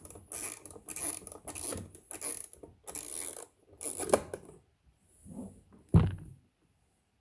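Hand tool working a tight fastener in repeated short scraping strokes, about two a second, which stop about four and a half seconds in. A single thump follows a little later.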